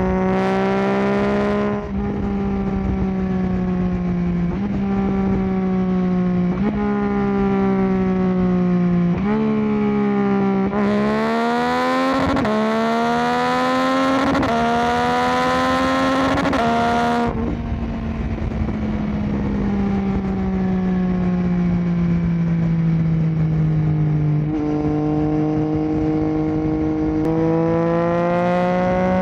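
2022 Yamaha Tracer 9 GT's inline-three engine through an unbaffled Akrapovic full exhaust, heard while riding. Its pitch falls and jumps several times with gear changes, then climbs hard through the gears with wind rush about a third of the way in. After that it winds down slowly, with a downshift and a fresh pull near the end.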